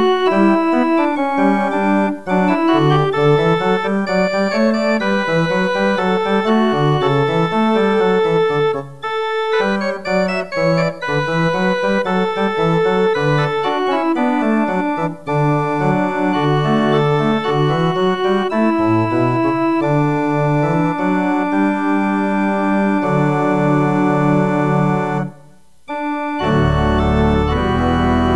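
Church organ playing the postlude: held chords over a moving bass line. Near the end it pauses briefly, then comes back in with a loud full chord with deep bass.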